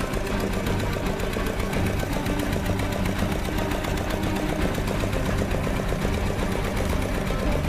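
Engine-driven sugarcane crusher running steadily as cane stalks are fed between its rollers: a rapid, even mechanical chugging over a low hum.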